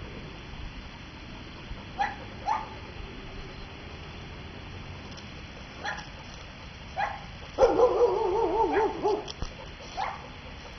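A dog making short rising yips every second or two, with a longer, wavering whine about three-quarters of the way through that is the loudest sound.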